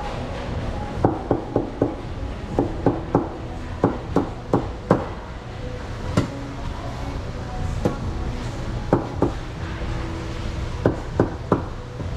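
Sharp knocks struck in quick irregular groups of two to four, over a steady background hum.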